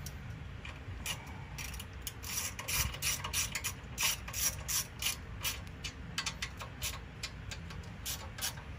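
Hand ratchet clicking in quick runs as the valve cover bolts on a small OHV engine are snugged down.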